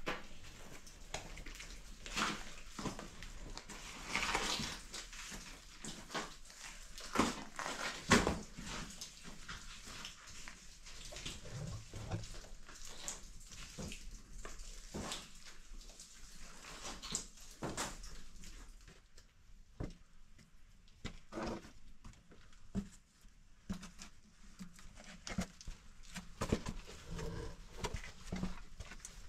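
Irregular scuffs and knocks of shoes and hands on rock as a person clambers down a narrow cave passage on a rope, with heavy breathing from the effort.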